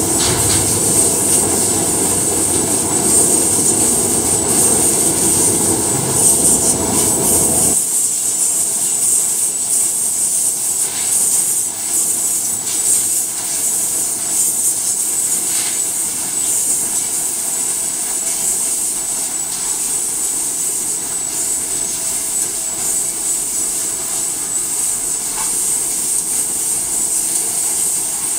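Steady running noise of a crab-processing line's conveyors and machinery, a strong high hiss over a lower rumble. The lower rumble drops away abruptly about eight seconds in, leaving mainly the hiss.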